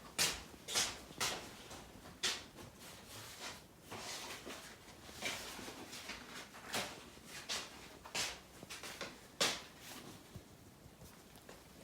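Irregular light knocks, rubs and rustles of objects being handled, a dozen or so short sounds, the sharpest about two-thirds of the way through, dying down near the end.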